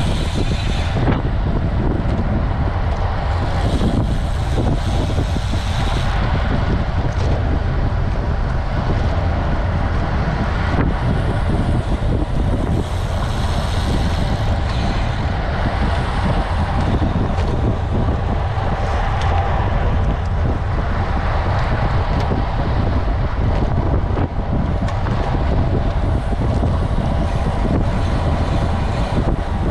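Steady rushing wind noise buffeting the microphone of a camera on a road bike moving at about 40 km/h.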